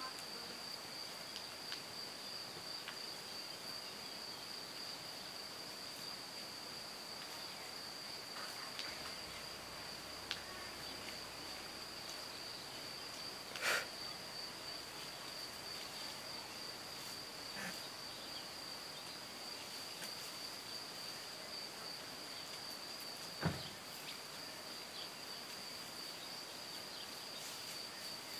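Insects in the meadow grass trilling steadily at one high pitch without a break. Two short knocks stand out, one about halfway through and one later.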